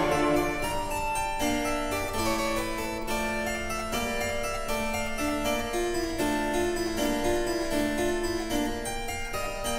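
Background instrumental music: a keyboard instrument plays a steady stream of short notes.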